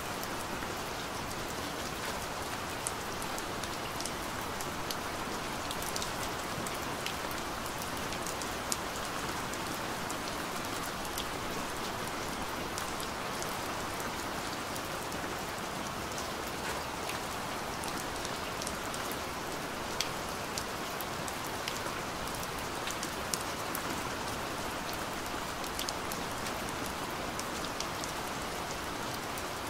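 Steady rain falling: an even hiss with many scattered sharp ticks of single drops.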